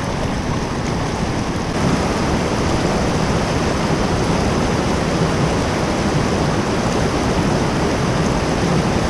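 Fast-flowing creek water rushing steadily over rocks, growing louder about two seconds in.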